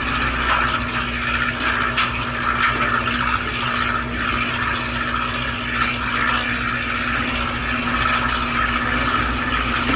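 A fishing boat's engine running steadily, a constant hum with a low rumble, mixed with wind and water noise; a few faint clicks.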